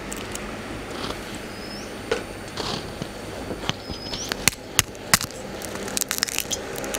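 A few sharp metallic clicks and knocks as an aluminium steamer pot's perforated plate and domed lid are handled and set in place, most of them in the second half. A bird gives a short rising whistle three times over steady outdoor background noise.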